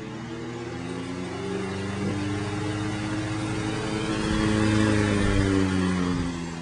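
Antique Emerson 16-inch oscillating electric fan running: a steady motor hum and blade whir whose pitch rises and falls slightly, getting louder toward the end.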